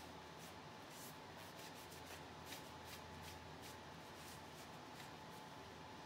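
Faint small ticks and light rustles from art supplies being handled, a few to several a second, over a low steady electrical hum.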